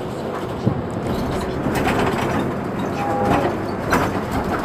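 Mercedes-Benz Citaro C2 city bus idling at a stop: a steady engine drone, with a few short clicks and knocks over it.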